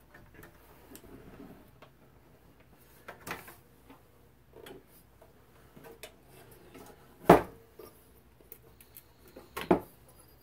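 Handling clatter of the metal chassis of a 1940 Zenith 10S464 tube radio on a wooden workbench: scattered light clicks and knocks, with a sharp knock about seven seconds in and another near the end.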